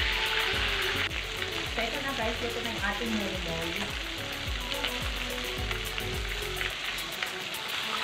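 Whole parrot fish sizzling as they fry in hot oil in a pan, loudest in the first second and then a softer, steady crackle; the fish are fried through. Background music with a steady beat plays underneath and stops near the end.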